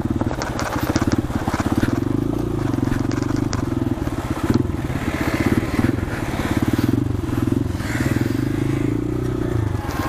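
A 150 cc single-cylinder motorcycle engine running at a steady, low pace while riding over a rocky riverbed, with scattered crunching and clicking of stones under the tyres.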